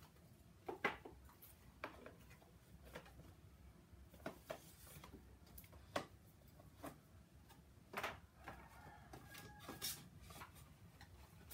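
Small cardboard gift boxes and packaging being handled and opened by hand: faint scattered taps, scrapes and rustles, about one every second or so.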